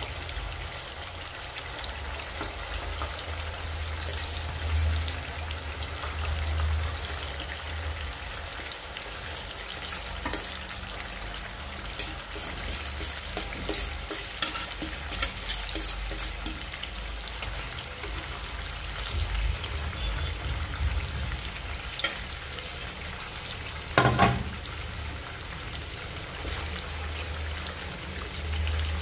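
Fermented soybean paste frying in hot oil in a metal kadai, with a steady sizzle. Midway through, a quick run of sharp clicks and scrapes comes as the paste is pushed off a plate into the pan. Later there is one loud knock, and near the end a wooden spatula stirs the pan.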